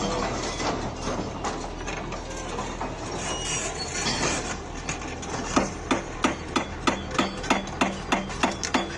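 Tata Hitachi hydraulic excavator's diesel engine running steadily with scraping and clatter of work, then from about halfway a regular metallic knocking about three times a second.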